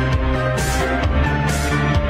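Music: a track with a steady low bass, sustained notes and a swell of high hiss about once a second.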